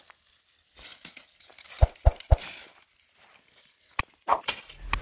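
Dry twigs and brushwood rustling, crackling and snapping as they are gathered by hand, with a few sharp snaps about two seconds in.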